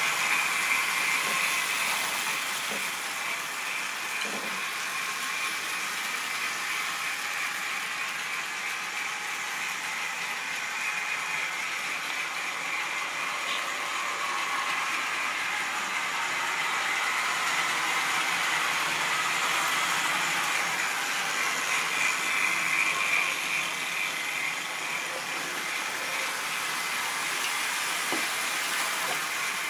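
Model railway locomotive running on the layout's track: a steady electric-motor whir with wheel noise on the rails. It swells a little about two-thirds of the way through.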